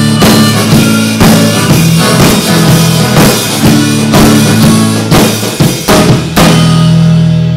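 Live acoustic guitar and drum kit playing a blues shuffle with a steady beat. About six seconds in the drum strokes stop and a final chord rings on, the close of the song.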